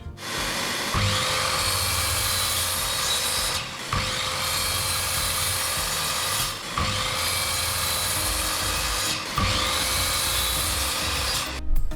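Electric power tool working SPF 2x4 wood, running in four spells of about two and a half seconds each with brief breaks between them.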